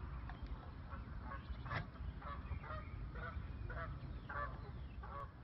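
Geese honking repeatedly, a rapid series of short calls.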